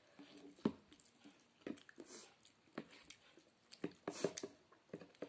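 Close-miked chewing and wet mouth sounds of someone eating spicy noodle soup: scattered small clicks and smacks, with a couple of short hissing intakes of breath.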